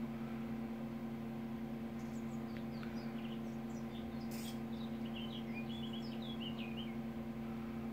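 A steady low electrical hum, with faint short high bird-like chirps from about two seconds in until past six seconds.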